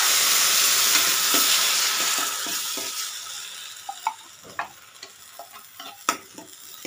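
Wet ground rasam paste dropped into hot coconut oil in a stainless-steel pan: a sudden loud sizzle that dies away over three or four seconds, then a few light clicks and scrapes.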